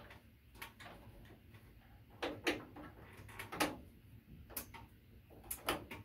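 Irregular light clicks and taps as wire-nut-capped wires are pushed and tucked into an LED panel light's metal junction box.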